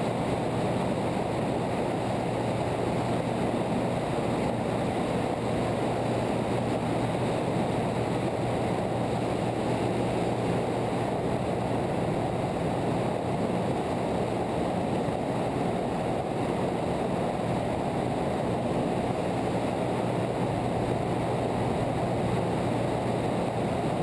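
Light aircraft in flight: a steady engine drone with rushing airflow noise, unchanging throughout.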